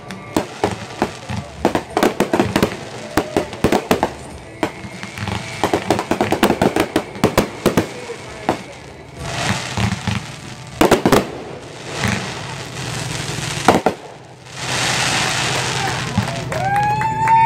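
Fireworks going off: a dense string of sharp cracks and bangs that thins out to a few louder reports. About two-thirds of the way through comes a steady rushing hiss lasting a couple of seconds.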